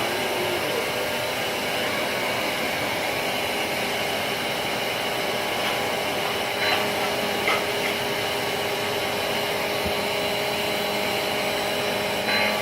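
Vacuum cleaner running steadily with a constant motor whine while it is used on a cat's fur to suck up fleas, with two brief small bumps a little after the middle.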